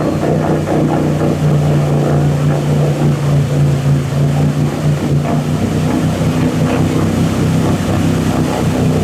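An off-road vehicle's engine running steadily and loud, with a slight shift in its pitch about five seconds in.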